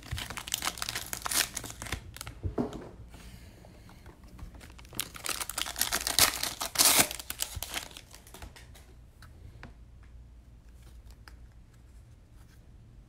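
Plastic packaging on a box of trading cards being torn open and crumpled, in two bursts of crinkling a few seconds apart, followed by quieter rustling and light clicks of the cards being handled.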